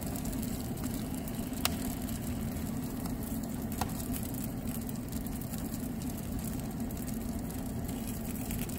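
Steady low mechanical hum, with two sharp metallic clicks about two seconds apart as a metal wiring tool taps the foil tray while meat slices are flipped on a wood-stove top.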